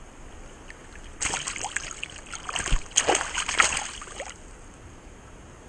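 Water splashing and sloshing around a landing net held in a shallow river, in irregular bursts that start about a second in and stop about three seconds later.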